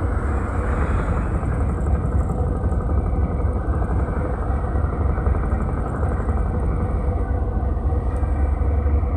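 Steady low rumble of a running vehicle, unbroken throughout.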